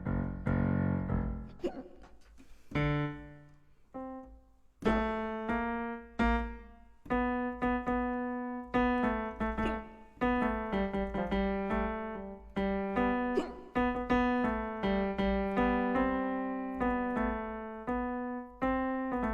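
Piano playing a slow tune, notes and chords struck one after another and each dying away; it is sparse at first and settles into a steady flow of notes about five seconds in.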